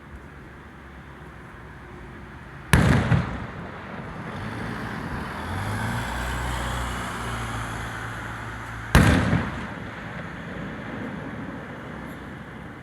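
Two aerial firework shells bursting, each a sharp loud bang with a short rumbling echo, about six seconds apart. Between the bangs there is a steady hiss.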